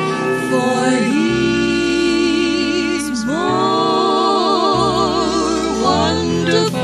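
Gospel vocal group singing in harmony over a low accompaniment: long held notes with vibrato, the voices sliding down and back up in pitch about one and three seconds in.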